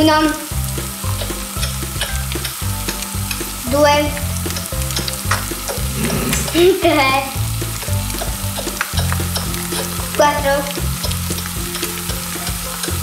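Beaten eggs of a frittata sizzling in oil in a non-stick frying pan, with a spatula scraping the pan. A few short squeaky pitched glides sound over the sizzle, about four times.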